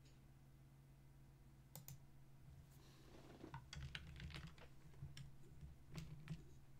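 Faint clicking of a computer keyboard and mouse: a quick double click about two seconds in, then a flurry of key taps from about three seconds until near the end, over a low steady hum.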